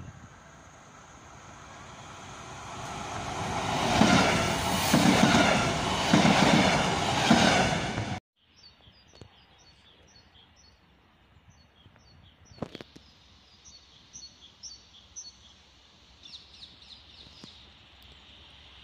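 A passenger multiple-unit train approaching and passing close by, its noise swelling for about four seconds into a loud rhythmic wheel clatter of roughly one beat a second, then cutting off abruptly about eight seconds in. After that only a quiet background with small birds chirping and one sharp click.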